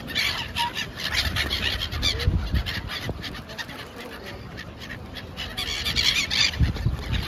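A flock of gulls calling, many short squawks overlapping, with a low rumble now and then.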